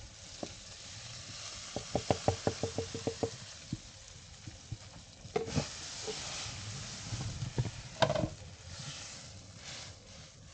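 Cooking over a fire: a quick run of about ten sharp knocks from a utensil about two seconds in, over a low sizzling hiss, followed by a few scattered knocks and a brief scrape.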